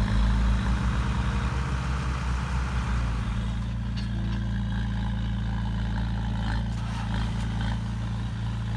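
Heavy diesel engine of construction machinery running steadily. It is louder and labouring for about the first three seconds, then settles to an even, lower running level.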